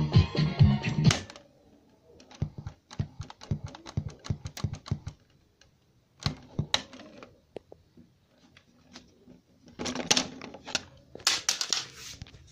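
Music with a beat playing from a USB cassette player, cutting off suddenly about a second in. Then a quick run of clicks and knocks as the player is handled and its buttons pressed, with louder rustling and knocking near the end.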